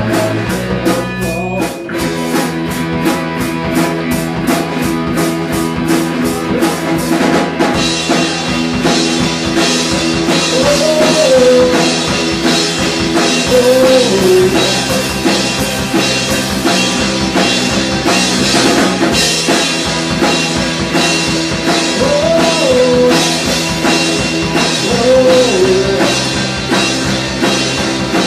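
A live rock band playing: a drum kit keeping a steady beat, electric guitar and bass guitar through small amps, and a male lead vocal. The cymbals get busier about eight seconds in, and the singing comes in in short phrases shortly after.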